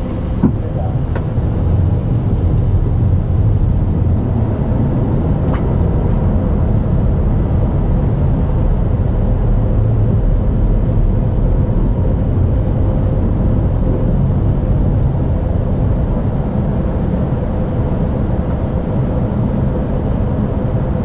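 Steady rumble of airflow and engine noise inside an Airbus A320neo cockpit in flight on approach, with a faint steady hum. A few light clicks sound in the first few seconds.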